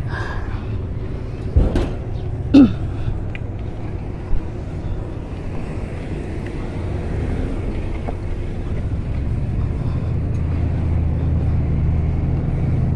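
Street traffic: cars passing on an avenue over a steady low rumble that grows louder toward the end, with a couple of brief, sharp sounds about two seconds in.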